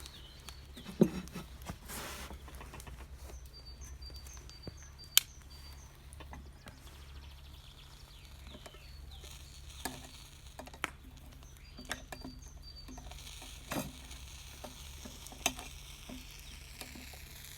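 Sandwich frying in the hot Petromax sandwich iron, a steady sizzle with sharp clicks now and then, the two loudest about one and five seconds in.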